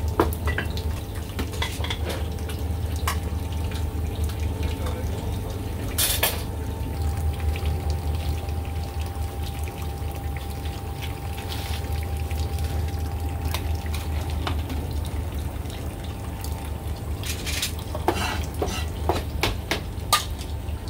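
Kitchen clatter at a beef-offal stall: scattered knocks and clinks of a cleaver, ladles and a wire strainer against a wooden chopping block and steel pots, over a steady low hum. The knocks come singly, with a sharper one about six seconds in and a quick cluster near the end.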